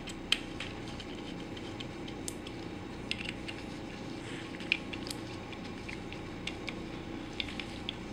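Scattered small metallic clicks and taps of screws and a hand tool as the faceplate of a Pfeiffer vacuum pump is screwed on. Underneath runs a faint steady hum.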